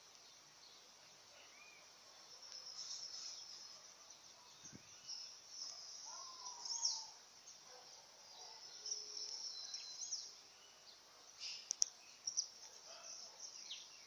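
Several birds chirping and calling faintly, mostly short high notes that come and go, with a lower sliding call about six seconds in and a couple of sharp clicks near the end.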